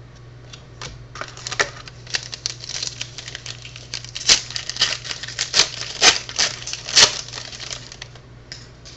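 Trading cards being handled: a quick, irregular run of clicks, snaps and light rustles as cards are flipped through and set down, the sharpest snaps in the second half. A steady low electrical hum runs underneath.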